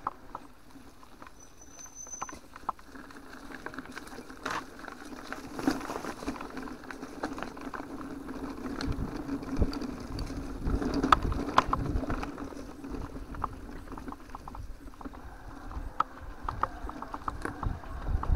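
Mountain bike riding over a grassy dirt trail, heard from a handlebar-mounted camera: tyre and drivetrain noise under a steady hum, with scattered clicks and rattles as the bike goes over bumps. Wind buffets the microphone toward the end.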